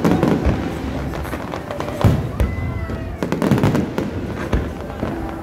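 Fireworks display: a dense run of bangs and crackling shell bursts, with louder bangs near the start, about two seconds in and again a little later.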